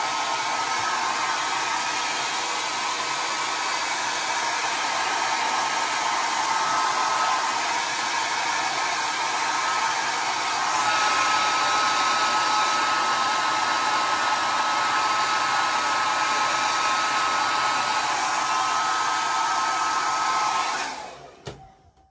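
Handheld hair dryer running with a steady rush of air and a high whine, a little louder from about halfway. It is switched off near the end, and the sound dies away.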